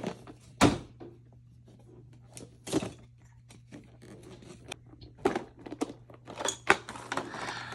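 Toy packaging being worked open by hand: scattered crinkles and sharp snaps of plastic and cardboard, with a loud crack about a second in and another just before three seconds, and a busier run of snaps near the end.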